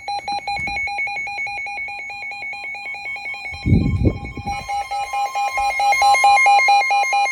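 Weather alert radio alarm: rapid electronic beeping that grows louder and harsher about two-thirds of the way through, with a steady higher warning tone coming in under it near the end. It signals an incoming severe thunderstorm warning. A brief low muffled sound about halfway through.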